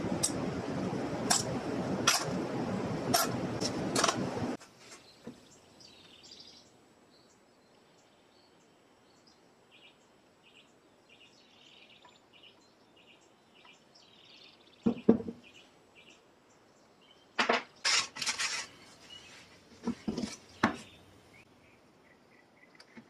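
A steady rushing noise with several sharp clinks of small metal parts against a metal muffin tin, cut off suddenly after about four seconds. Then faint, repeated high chirping, with a few short clicks and knocks of parts being handled on a workbench.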